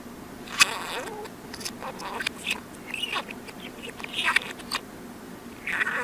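A budgerigar's chatter played in reverse: quick runs of short scratchy chirps and squeaks, starting with a sharp click about half a second in, over a faint steady hum.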